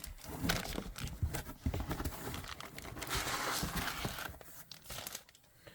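Packaging being handled during an unboxing: rustling and crinkling with scattered light knocks as items are moved in and out of the box.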